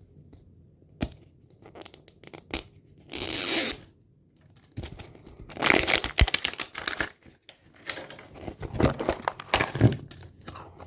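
Plastic toy packaging being torn open and crinkled by hand. A few clicks come first, then a short rip about three seconds in, then several seconds of dense crackling and rustling.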